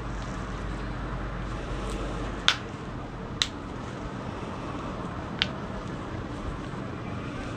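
Joints cracking (cavitation pops) during a chiropractic adjustment: a few short sharp pops, the loudest about two and a half seconds in, then two smaller ones.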